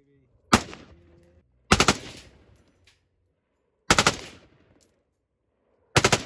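M4-style carbine firing short bursts of automatic fire, four strings of shots roughly two seconds apart. Each burst is a quick rattle of a few rounds that rings off briefly across the range.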